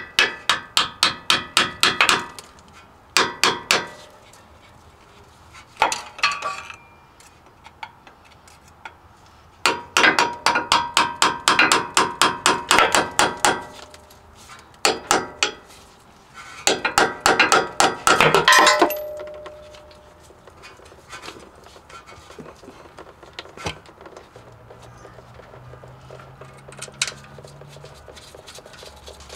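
Hammer striking the handle of a screwdriver wedged into the seam of a Ford F-150's rusty steel rear differential cover, driving it in to pry the cover loose. The strikes are sharp and metallic with a ringing note, coming in several quick runs of about five a second over the first twenty seconds, then they stop.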